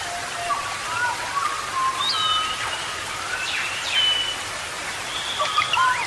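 Steady hiss of falling water with birds calling over it in short whistled notes and slurred phrases, thicker near the end.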